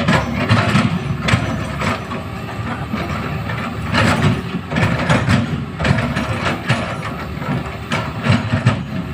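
Hydraulic excavator's diesel engine running under load, with repeated metallic clanks and rattles from the machine working.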